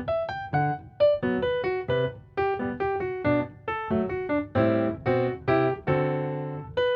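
Background piano music: single notes and a few held chords played at a gentle pace.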